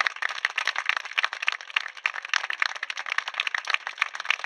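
A group of people applauding: many hands clapping at once, fast and uneven.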